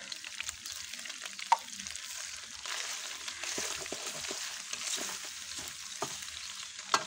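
Sliced onions and beef pieces sizzling in hot oil in a metal pot, stirred with a wooden spoon that scrapes and knocks against the pot. The sizzle grows louder a little over halfway in.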